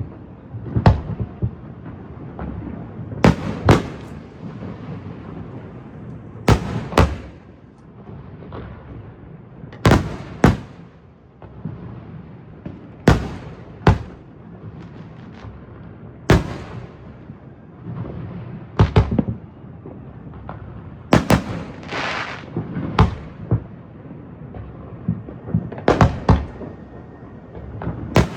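Aerial fireworks shells bursting in a series of sharp booms every few seconds, often two close together, with a rumbling echo between them.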